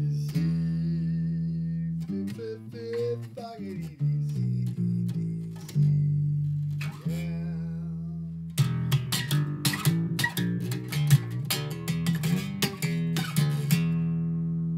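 Background music played on guitar over a steady bass line, with plucked notes that grow busier about halfway through.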